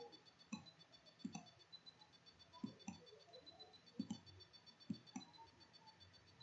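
Near silence: room tone with a handful of faint, irregular clicks.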